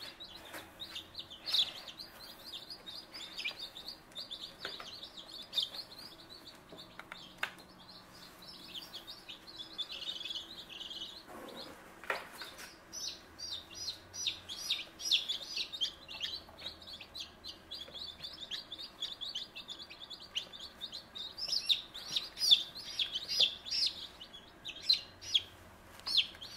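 A brood of newly hatched baby chicks peeping, many short high calls overlapping, busier in the second half.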